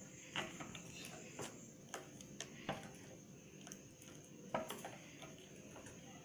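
Metal spoon stirring thin rice-and-dal batter in a glass bowl, with faint, irregular clicks as it knocks against the glass.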